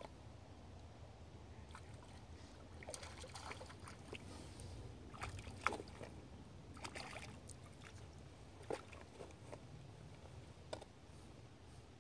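Small, irregular splashes of a hooked yellow perch thrashing at the surface of the water as it is played in to the rocks, the sharpest a little before six seconds in, over a low steady rumble.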